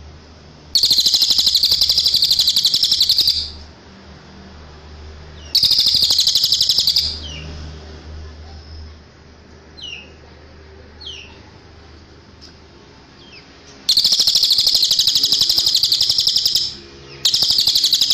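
Cililin songbird singing: four loud, high, rapid trills, each one to three seconds long, with a few short chirps between the second and third.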